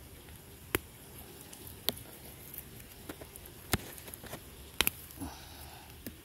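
Light rustling and a handful of sharp, scattered clicks as a hand pulls dry roots out of loose, dry soil.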